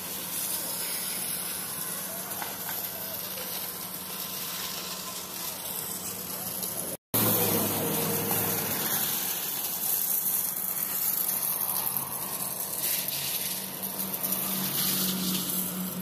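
Steady construction-site noise during a concrete pour: a concrete pump truck's engine running with a low hum under a constant hissing wash. The sound drops out for an instant about seven seconds in and comes back louder.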